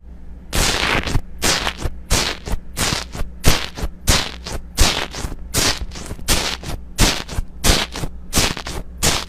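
Hands squishing and poking slime, sticky squelching pops at about three a second, over a steady low hum.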